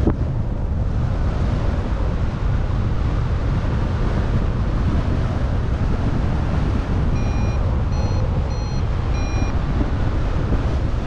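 Airflow rushing steadily over the microphone of a paraglider in flight. About seven seconds in come four short beeps in quick succession, a flight variometer's climb tone signalling lift.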